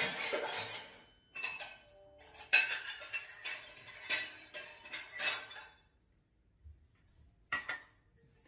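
Dishes and kitchen utensils clinking and knocking: a run of separate knocks, some with a short ring, then a pause and a couple more clinks near the end.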